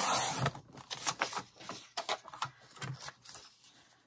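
A sliding paper trimmer working through a sheet of patterned paper. A brief rasping swipe opens it, then a run of light, irregular plastic clicks and taps as the paper and the trimmer's cutter are shifted and lined up.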